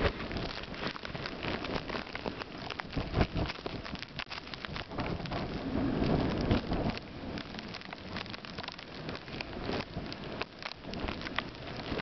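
Snowstorm noise: a dense, constant crackle of blowing snow, with wind gusting over the microphone in low rumbles, the strongest about six seconds in.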